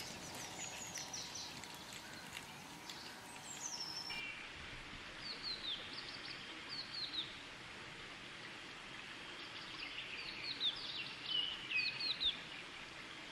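Songbirds singing short falling chirps in repeated phrases, over a steady outdoor hiss.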